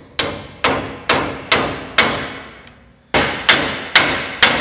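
Hammer blows on metal driving the original kingpin lock into a 1932 Ford BB's front axle. A steady run of sharp strikes about two a second, each one ringing briefly, with a short pause about halfway through.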